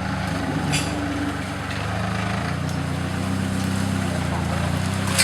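Off-road 4x4's engine running steadily at low revs, with a brief knock about three-quarters of a second in.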